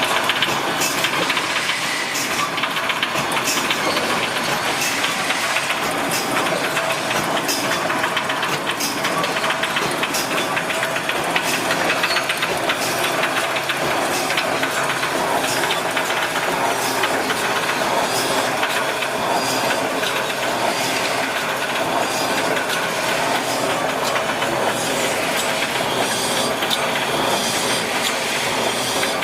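Automatic brick force wire mesh welding machine running, a steady mechanical clatter and hiss with a sharp clack repeating about once a second.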